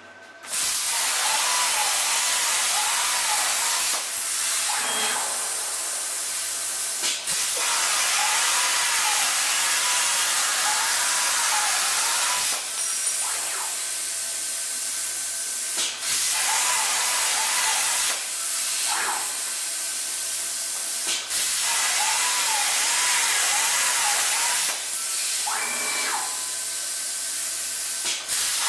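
Unimig Razor Cut 45 plasma cutter on a CNC table cutting holes in 1.6 mm (16-gauge) steel plate: a loud, steady hiss of arc and air that breaks off briefly every three to four seconds between cuts. A faint warbling whine from the table's drive motors runs under it.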